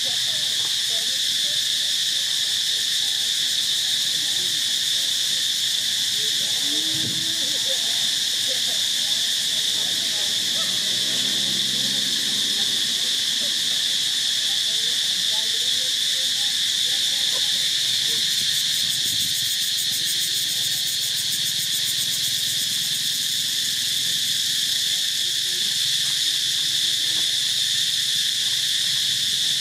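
Steady, shrill chorus of insects, one unbroken high drone.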